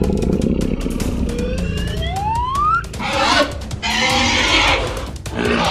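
Background music with a rising whistle-like glide, then two harsh growling bursts: cartoon dinosaur roar sound effects for a toy T-rex.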